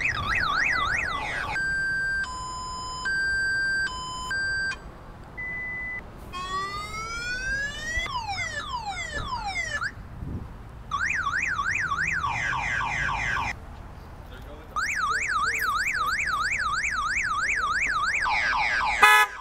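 Car alarm siren played from a Bluetooth speaker, cycling through its stock tones: a fast warble, alternating two-pitch beeps, a short steady tone, rising sweeps and then falling sweeps, more warbling with quick rising chirps, and a long warble again. A short, louder blast comes right at the end.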